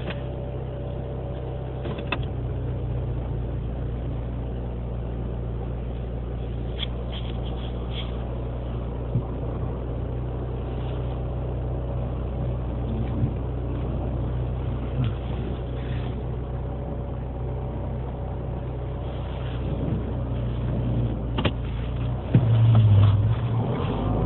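2007 Mini Cooper S's 1.6-litre four-cylinder engine running cold at about 9°F, a few minutes after a cold-start stall and restart, with a steady hum and a few light clicks. It gets louder about two seconds before the end. The dealer blamed the cold stalling and rough running on condensation and ice inside the throttle body housing.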